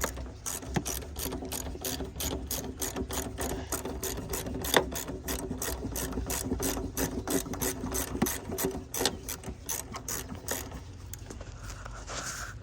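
Hand ratchet wrench clicking steadily, about four clicks a second, as it backs off a 10 mm nut. The clicking stops about ten and a half seconds in.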